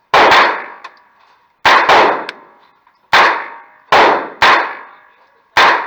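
Single shots from an MP5 submachine gun fired on semi-automatic: seven shots at uneven intervals, two of them in quick succession about two seconds in, each ringing out with a short echoing tail.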